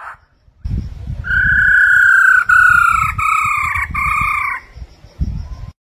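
A black-throated laughingthrush gives one long, loud whistled note, falling slightly and broken into about four linked pieces, over a low rumbling noise.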